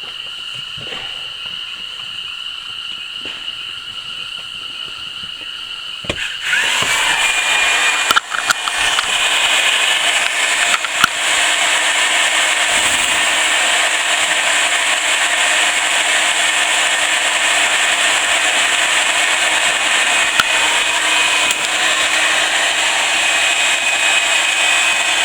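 Two rocket fountain fireworks spinning on a power drill, gushing with a loud steady hiss that starts suddenly about six seconds in. A whine rises as the drill motor spins up, then holds steady, with a few sharp cracks.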